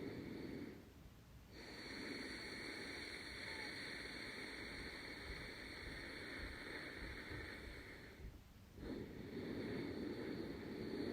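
Ujjayi pranayama (ocean breath): slow, audible breathing through a gently constricted throat, making a steady rushing sound. An inhale ends about a second in, a long exhale runs for about six seconds, and the next inhale begins near the end.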